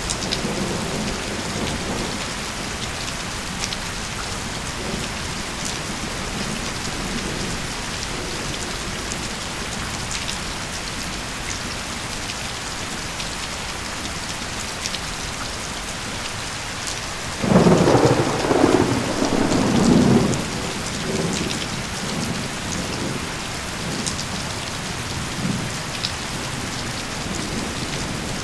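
Steady rain falling, with a loud thunder rumble a little past halfway that lasts about three seconds. Softer rolls of thunder come near the start and again after the loud one.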